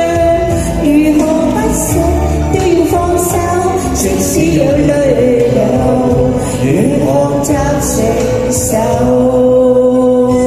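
A man and a woman singing a Mandarin pop duet into microphones over backing music with a steady beat, finishing on a long held note near the end.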